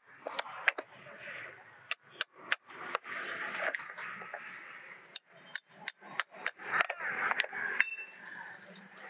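Hammer striking a metal chisel driven into the seam between a lead-acid battery's plastic lid and case: a string of sharp metal clinks at an uneven pace, one ringing on briefly near the end.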